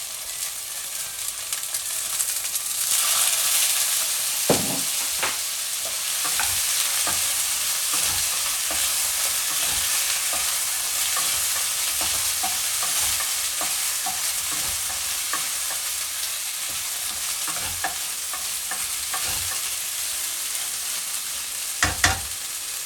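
Chicken wings sizzling in a hot frying pan and being stirred, with short knocks of the utensil against the pan. The sizzle swells about three seconds in, as a tablespoon of Chinese cooking wine goes into the pan.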